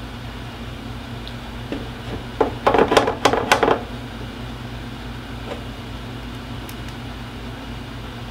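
A cordless drill drives a screw through a hairpin leg's mounting plate into a walnut desktop, running in a few short, loud bursts about two and a half seconds in. A steady low hum runs underneath.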